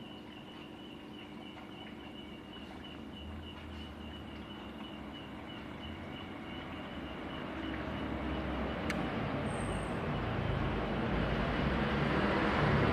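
Aquarium air pump humming with a fast, steady ticking, while the air-stone bubbling grows louder over the second half.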